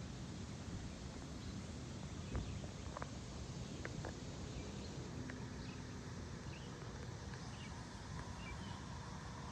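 Faint steady outdoor background noise, heaviest in the low end, with a few scattered sharp clicks a couple of seconds in and short faint high chirps.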